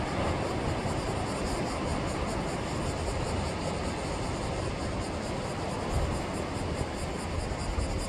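Sea waves washing on the shore: a continuous, steady rush of surf with low rumbling swells.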